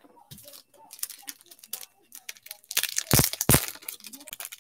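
Trading cards and plastic card holders being handled on a table: small clicks and rustles, with two sharp knocks in quick succession about three seconds in.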